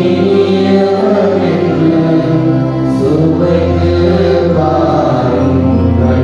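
Tamil responsorial psalm being sung in slow held notes over a sustained instrumental accompaniment, with a deep bass note entering about three seconds in.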